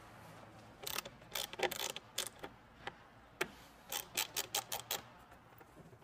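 Phillips screwdriver turning small screws out of the plastic back of a car's instrument cluster, where they hold the chime speaker. It makes a run of irregular light clicks and ticks, clustered from about a second in to about five seconds.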